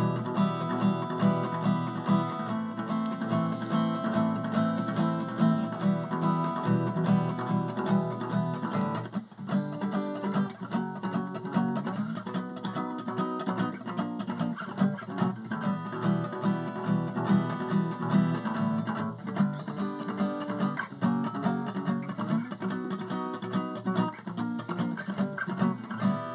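Acoustic guitar strumming chords in a steady rhythm, with no singing: the instrumental outro of the song.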